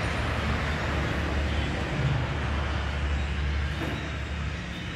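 Steady low rumble under a broad even hiss of background noise, with no distinct events.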